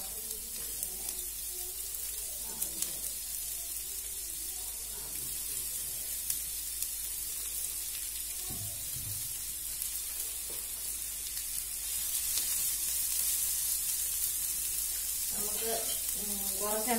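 Sliced onions sizzling as they fry in hot oil in a frying pan, a steady hiss that grows louder about twelve seconds in.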